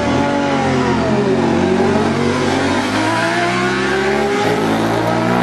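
Two sport motorcycles, a Suzuki GSX-R600 inline-four and a Suzuki TL1000S V-twin, launching from a drag-strip start and accelerating hard side by side. The engine pitch dips once about a second and a half in, then climbs steadily.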